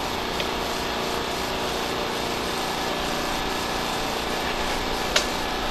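Steady mechanical hum with hiss, unchanging in level, with one sharp click about five seconds in.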